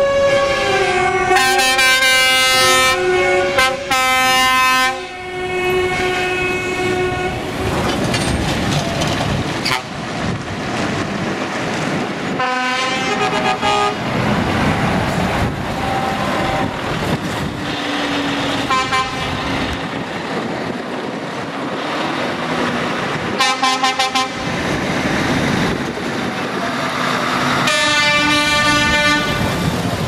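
Truck air horns sounded several times: long chord blasts for the first few seconds, short toots around the middle, and another long blast near the end. Diesel lorry engines run underneath as the trucks pull away.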